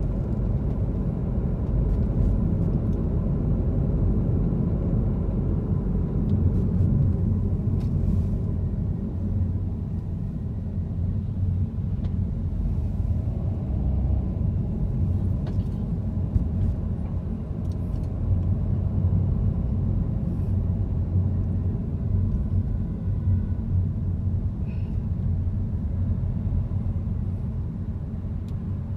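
Car driving on a city road, heard from inside the cabin: a steady low rumble of engine and road noise, with a few faint small clicks.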